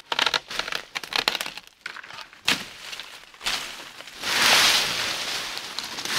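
Dry leaves, twigs and dead fern fronds crackling and crunching as undergrowth is trampled, torn out and broken during brush clearing. A sharp snap comes about two and a half seconds in, and a louder, continuous rustle starts about four seconds in.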